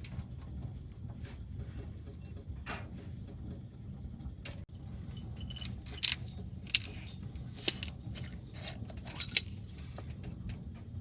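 Tableware clinking, a handful of short sharp clinks mostly in the second half, the loudest about six seconds in, over a steady low background rumble.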